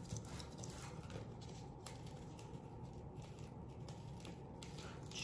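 Faint rustling and light crackles of a vinyl decal sheet and paper being handled, over a steady low room hum.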